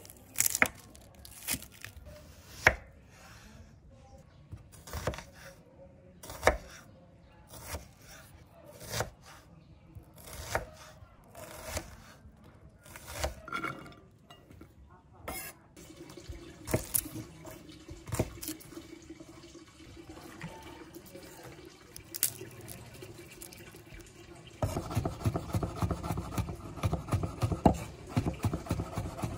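Chef's knife cutting through an onion on a bamboo chopping board, single cuts about a second apart. Near the end, fast continuous chopping as a cleaver minces garlic on the board.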